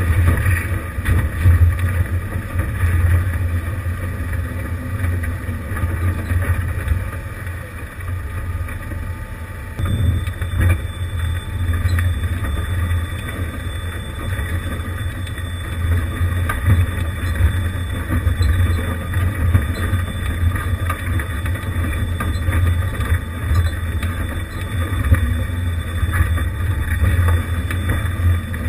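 1988 Jeep Wrangler YJ engine running at low revs as it crawls over a loose rock trail. Scattered knocks and crunches come from the tyres and chassis on the rocks.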